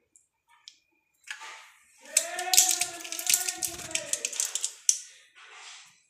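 Foil blister strip of vitamin E capsules crackling with rapid sharp clicks as a capsule is pressed out, starting about two seconds in and lasting about three seconds. Over it, a loud drawn-out pitched whine from an unseen source holds for the same stretch, rising slightly and falling back.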